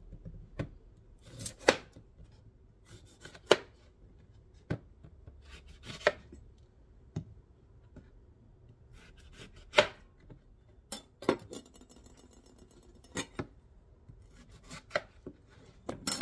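Chef's knife cutting limes into halves and wedges on a plastic cutting board: about a dozen sharp knocks of the blade hitting the board, irregularly spaced a second or two apart.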